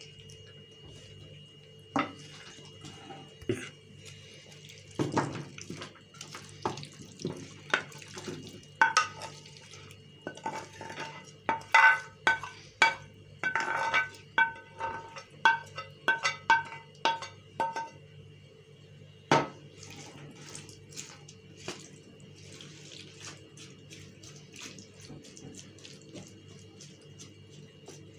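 Kitchen dishes and utensils clinking and knocking as the sauce-coated potatoes and chicken are moved into the baking tray. About nine seconds in comes a run of ringing clinks, roughly twice a second, that stops after about eight seconds, with a few scattered knocks before and after.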